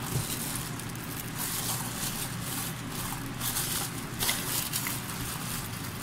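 Thin plastic bag wrapped around a cup crinkling and rustling as it is handled, in short spells that come and go.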